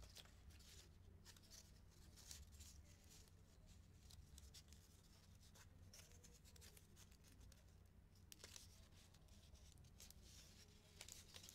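Near silence: faint rustling and light clicks of construction-paper strips being handled and bent into rings, over a steady low hum.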